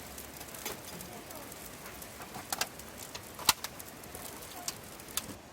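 Wood campfire crackling, with irregular sharp pops over a steady hiss; the loudest pop comes about three and a half seconds in.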